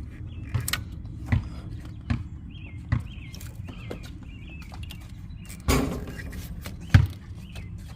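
Scattered clicks and knocks of hand tools and metal parts being handled while an alternator is unbolted and unplugged, over a low steady rumble; a louder knock comes about six seconds in and a sharp clack about a second later.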